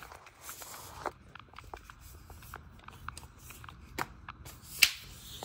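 Person moving about on a concrete floor: scattered light taps, clicks and steps, with a sharp knock about a second before the end as something is handled.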